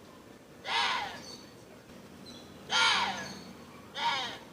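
Water deer giving three harsh, screaming calls, each about half a second long and falling in pitch, a second or two apart.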